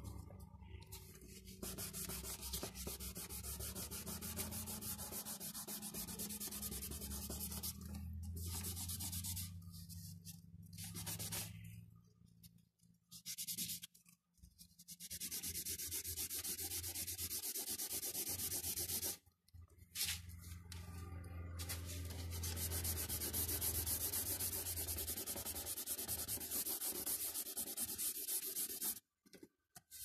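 Fingers rubbing and blending pastel on paper: a fast, steady scrubbing that breaks off briefly a few times, around the middle and near the end.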